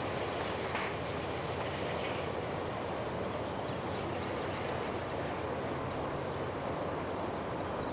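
Amtrak passenger train running on the rails at speed, a steady rumble and rushing noise with no horn.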